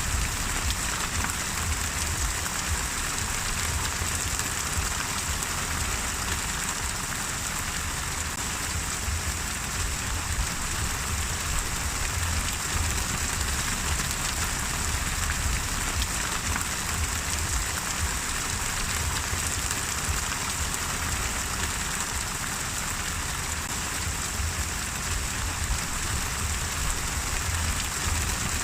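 Steady rain falling and pattering on a surface, an even hiss with a low rumble underneath.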